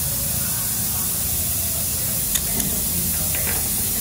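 Steady hiss of compressed air leaking from the truck's air system, with two light metal clicks a little past halfway as steel alignment shims are handled at the torque rod end.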